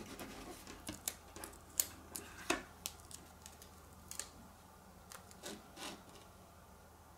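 Faint, irregular small clicks and rustles of vinyl decal and transfer tape being handled and pressed by fingertips onto an acrylic keychain. The sounds stop about six seconds in.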